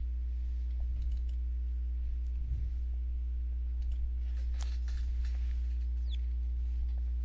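Computer mouse clicking a few times, with some dull knocks, over a steady low electrical hum on the microphone. A brief high squeak falls in pitch about six seconds in.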